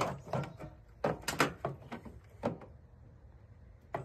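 Short sharp clicks and knocks of hard plastic parts being handled: a quick run of them in the first two and a half seconds, then a pause and one more click near the end. They come from the dryer's plastic door frame and its wiring being worked loose.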